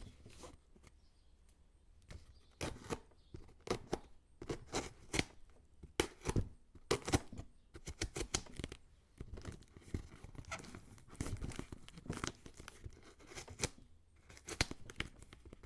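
Packing tape being ripped and peeled off a cardboard box in many short, irregular rips, starting about two seconds in.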